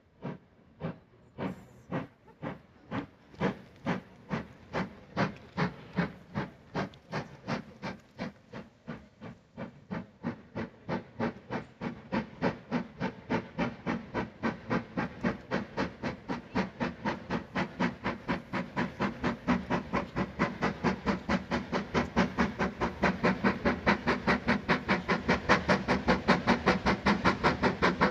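Steam locomotive exhaust chuffing as the Jacobite steam train approaches. The beats quicken from about one a second to about three a second and grow steadily louder.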